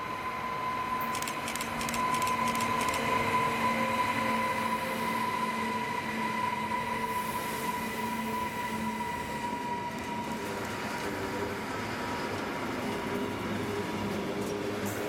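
Freight train passing close by. First its electric locomotives go past with a steady high whine that sinks slightly in pitch. About ten seconds in, the rolling rumble and rattle of the lorry-carrying wagons takes over.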